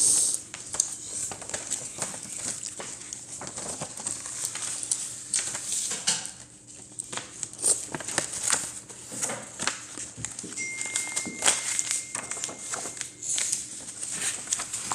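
A sheet of paper being folded and creased by hand: irregular rustles, crinkles and scrapes.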